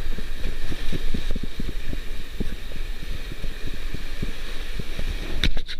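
Wind buffeting the microphone in irregular gusts over a steady hiss of surf breaking on rocks, with a few sharp knocks near the end.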